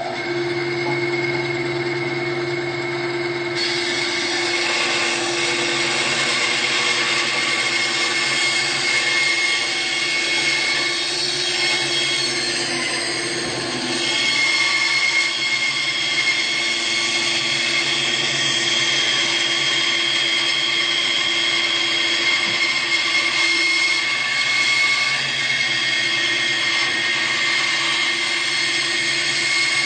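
SKIL 3386-01 9-inch band saw running steadily, its blade cutting freehand curves in a Douglas fir 2x4. A constant motor hum is joined about three seconds in by the noise of the blade working through the wood, which carries on without slowing.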